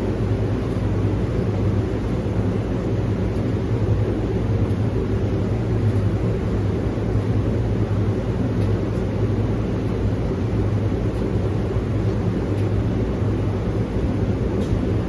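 Steady low drone of a car driving, heard from inside the cabin: engine and road noise with no change in pace, and a few faint ticks.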